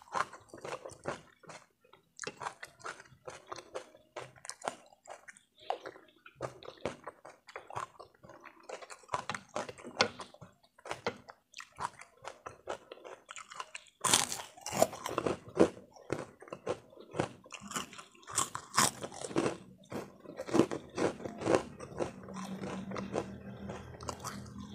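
Close-up eating sounds: chewing with many small mouth clicks on a mouthful of spicy instant noodles. Then, about halfway through, louder crisp crunching as a white puffed cracker (kerupuk) is bitten and chewed.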